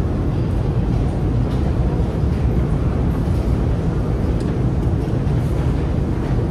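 Long, steep metro escalator running: a steady low rumble of its machinery and moving steps.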